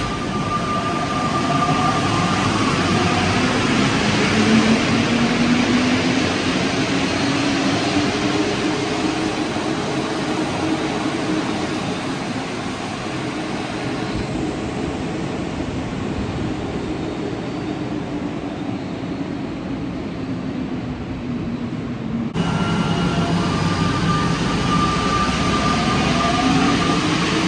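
Santiago Metro Line 1 rubber-tyred train running through a station: steady running noise with a motor whine that slowly glides in pitch. The sound changes abruptly about 22 seconds in, and another such whine begins.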